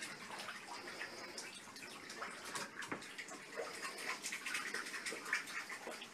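Faint sounds of water in a bubble-filled bathtub, with a light crackle of many small ticks.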